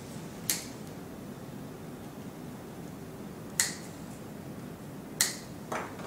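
Wire cutter snipping the excess copper conductors of a CAT-6 cable flush against a keystone jack: a few sharp snips spaced one to three seconds apart.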